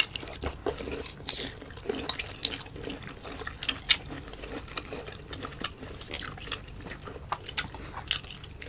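Close-miked wet chewing and mouth smacks of someone eating boiled cassava, a steady run of irregular short clicks and squelches.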